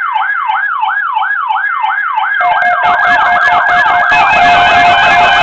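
Electronic siren yelping, its pitch sweeping up and down about three times a second. About two and a half seconds in, a second, faster siren and a steady tone join it over a rush of noise, and it grows louder.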